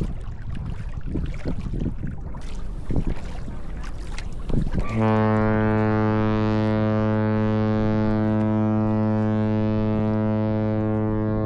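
Cruise ship's horn sounding one long, steady, deep blast that starts suddenly about five seconds in and is the loudest sound; before it, wind and water noise.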